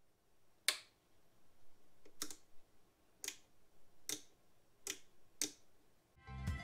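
About six sharp clicks at uneven spacing, roughly a second apart, from the front-panel switches and volume knob of a Retrolife R517 all-in-one turntable being worked by hand. The caption calls them solid switches.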